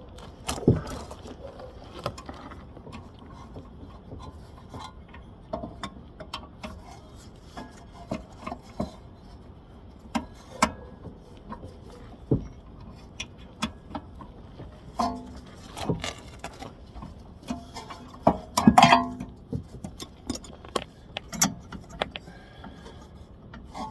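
Scattered metallic clicks, clinks and knocks from wrenches and brake parts being handled while a rear brake caliper is worked loose, with a louder run of clanks about three-quarters of the way through.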